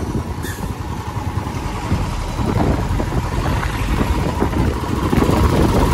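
Motorcycle engine running while riding in traffic, mixed with wind rush on the bike-mounted microphone; the level rises a little about two seconds in.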